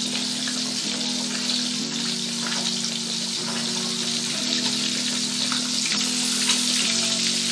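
Bilong-bilong fish frying in a pan of hot oil: a steady crackling sizzle of bubbling oil. Background music with held low chords that change about once a second plays underneath.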